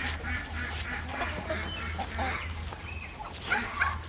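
Hens clucking, with several short, louder calls in quick succession near the end.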